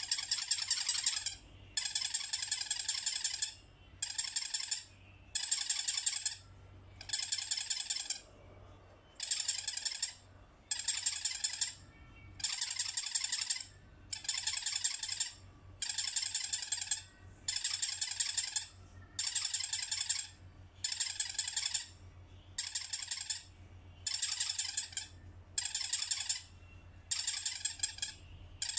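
Elephant soft toy squeaking again and again: a high squeak of about a second each time, repeating roughly every one and a half seconds with short pauses between.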